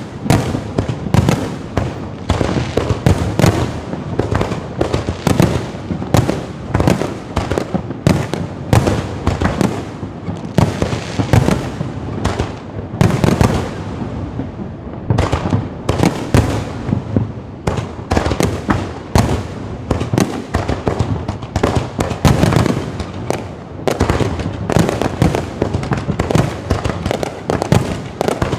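Aerial fireworks going off in a dense, continuous barrage of bangs and deep booms, several a second, with a brief thinning about halfway through.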